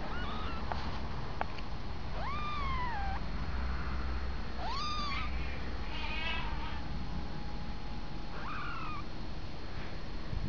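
About five drawn-out, meow-like animal calls, each rising then falling in pitch, over a steady low hum.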